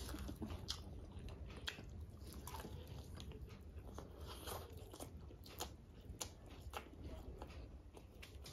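Two people biting and chewing crispy fried chicken, with scattered sharp crunches and wet mouth sounds.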